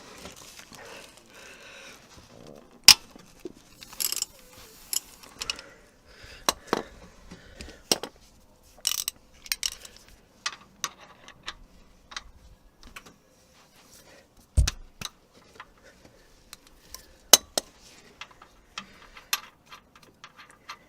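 Metal hand tools clinking and tapping irregularly as a T45 Torx bit and wrench are handled and fitted on the crankshaft sprocket screw, with one dull knock about two-thirds through.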